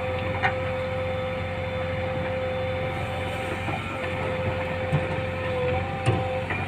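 Heavy diesel engine running steadily, with a constant high whine over the low hum and a couple of light knocks.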